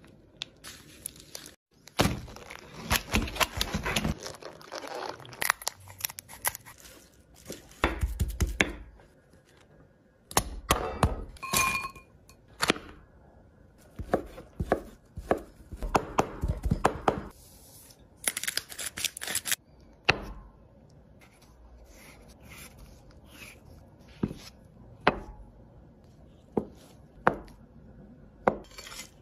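Knife cutting and chopping food on a cutting board: clusters of sharp blade strikes against the board, with quieter pauses between them. The food being cut includes raw marbled beef and a block of tofu.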